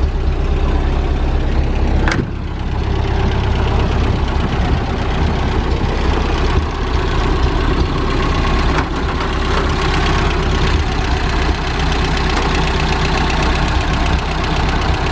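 1930 Ford Model AA's four-cylinder flathead engine idling steadily, running smoothly with the choke fully off. A single sharp knock sounds about two seconds in.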